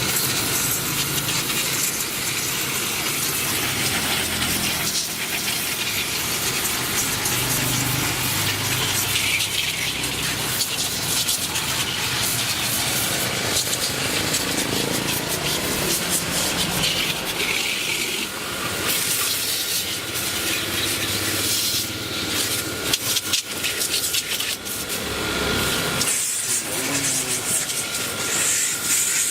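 A small motor running steadily with a continuous hiss, from a power tool or cleaning machine used on the refrigerator.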